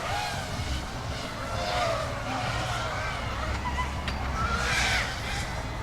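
7-inch FPV racing quadcopters in flight, their motors and props whining and swooping up and down in pitch with the throttle, over a low rumble underneath.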